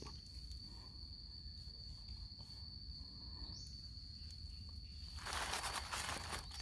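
An insect's steady, high, single-pitched trill in the forest, with a scratchy rustle lasting about a second near the end, as of leaf litter and soil being disturbed while the mushrooms are picked.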